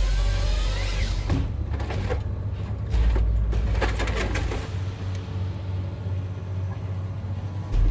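Heavy machinery running, a steady low engine drone with whines that rise and fall. The sound changes abruptly several times.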